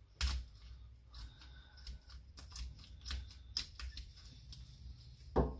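Secateurs cutting through a woodpigeon's ribs beside the backbone: a series of sharp snips and clicks, one loud snip just after the start and another near the end, with lighter ones between.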